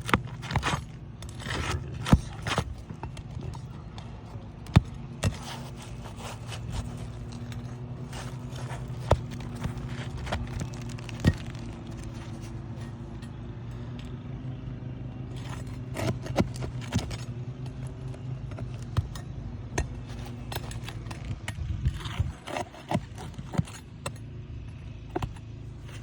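Roofing nails being worked loose and an asphalt shingle pulled up: scattered sharp clicks and knocks with scraping, over a steady low hum.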